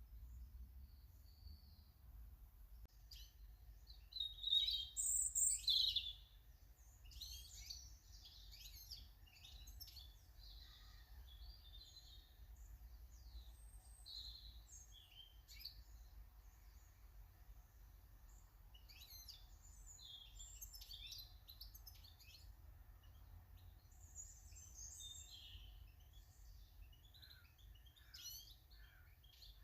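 Small garden birds chirping and calling in quick, short high notes, with a louder cluster of calls about four seconds in.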